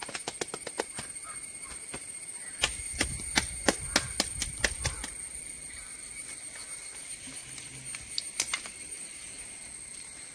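Irregular sharp clicks and crackles of dry sticks and fibre being handled against a stick-and-wire frame, thickest between about two and a half and five seconds in, with another brief burst near the end. A steady high whine runs underneath.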